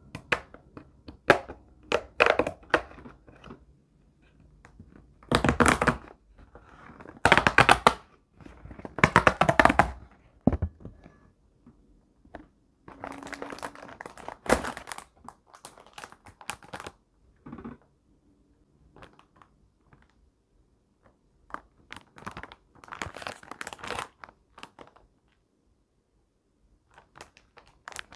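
Plastic and paper packaging of a Popin' Cookin' DIY candy kit being handled and opened: crinkling and tearing in short bursts, with a few knocks and quiet pauses between.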